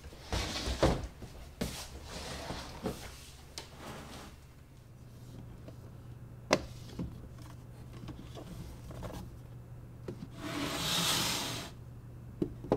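Boxes being handled in a plastic crate on a wooden table: rustling and rubbing with a few knocks, then sharp clicks. Near the end the crate scrapes as it slides across the table.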